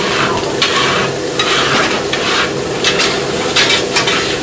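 Gopchang (pork intestines) and vegetables sizzling on a flat steel griddle, stir-fried and scraped in repeated strokes of metal spatulas.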